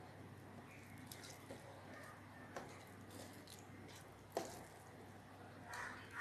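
Fingers mixing rice with hilsa fish curry on a steel plate: faint wet squishing with small scattered clicks and one sharper click about four seconds in. Near the end a small steel bowl clinks against the plate as curry is tipped out.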